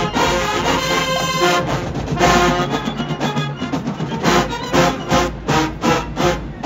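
HBCU show-style marching band playing: the full brass section sounds loud sustained chords over drums, then breaks into a run of punchy, evenly spaced accented hits in the second half.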